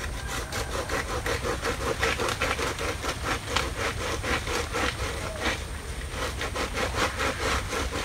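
Rhythmic scraping strokes, about four a second, from a person working up in the crown of a coconut palm among its fronds and coconut bunches, over a steady low rumble.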